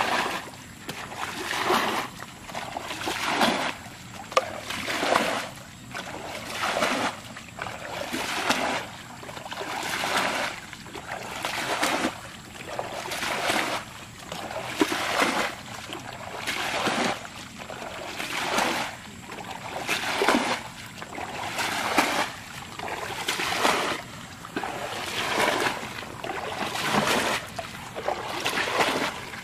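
Plastic bucket bailing muddy water by hand: a scoop followed by a splash as the water is thrown out, repeated steadily about every one and a half to two seconds. The bailing drains a mud-dammed stretch of ditch.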